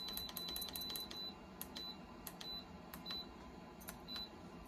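Short electronic beeps from the touch control panel of an HTVRONT automatic heat press, one per button press, as the timer is stepped up to 45 seconds. The beeps come in a quick run through the first second, then four more at slower, uneven intervals.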